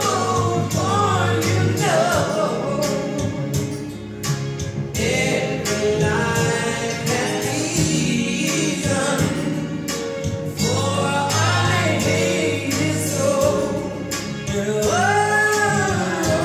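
A song with singing over instrumental backing, played back from a vinyl record on a turntable.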